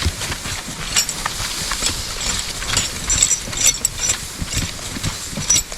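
Belgian draft horse walking in harness: hoofbeats with harness chains jingling and clinking, the jingling busier near the end.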